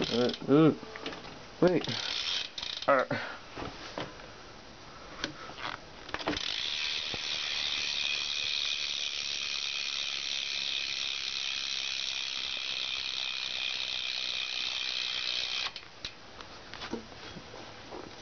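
Rear hub of a 2012 Fit Justin Inman 3 BMX bike buzzing as its pawls click rapidly while the wheel spins freely. The buzz runs steadily for about ten seconds and then stops abruptly. It is preceded by a few handling clicks.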